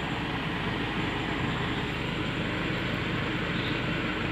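Engine of a Kagumi crawler carrier running steadily, heard from its cargo bed, with its newly fitted clutch disc and gearbox in place.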